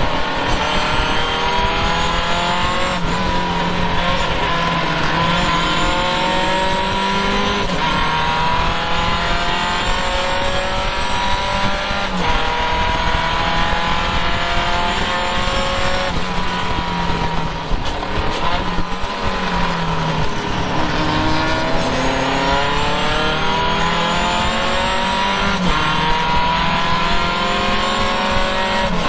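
Triumph race car's engine heard from the open cockpit, pulling hard up through the gears in several rising runs with a brief break at each upshift. Past the middle it backs off for a corner, then accelerates again through the gears.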